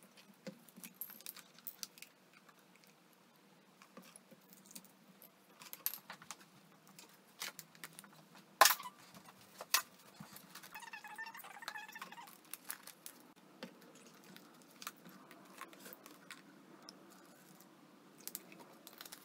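Plastic water bottles being handled on a tabletop: caps twisted, bottles clicking and tapping as they are picked up and set down, with one sharp knock a little before the middle. Water glugs as it is poured from one bottle into another.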